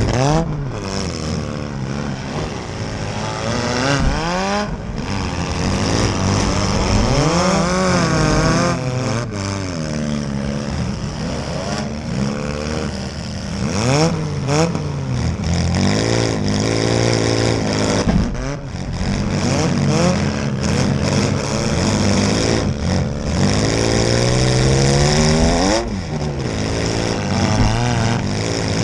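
Several demolition derby cars' engines revving hard, their pitches repeatedly rising and falling over one another, with occasional sharp crunching impacts as the cars hit each other.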